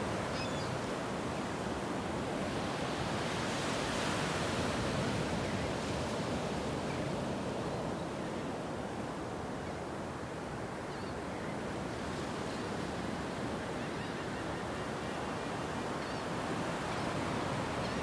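Small ocean waves breaking and washing in on the shore: a steady surf wash that swells a few seconds in, then eases slightly.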